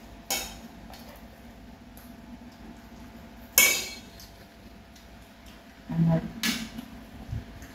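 Chopsticks and spoons clinking against ceramic bowls and plates during a meal: a few sharp, ringing clinks, the loudest about three and a half seconds in, with small tableware knocks between them.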